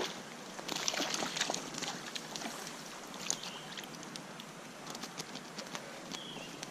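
Splashing and sloshing over the steady rush of a trout stream, busiest about a second in, then scattered small splashes and clicks, typical of a hooked brown trout being played and brought in.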